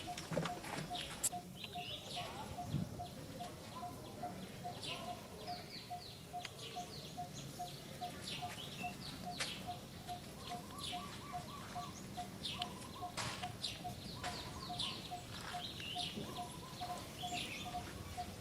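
Short, high, falling chirping calls scattered throughout, over an even pip repeating about three times a second.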